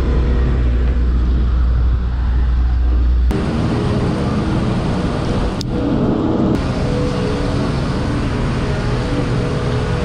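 Single-cylinder adventure motorcycle running on the road, with heavy wind rumble on the helmet microphone. About three seconds in the sound changes abruptly: the deep rumble drops away, and steady engine tones and road noise come forward.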